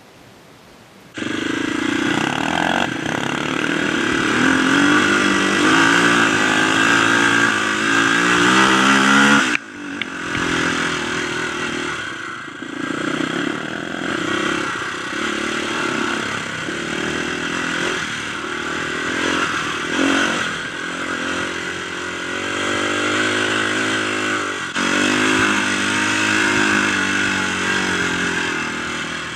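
Dirt bike engine running under load on a trail ride, its revs rising and falling through throttle and gear changes. It starts abruptly about a second in, drops out sharply for a moment near ten seconds in, then picks up again.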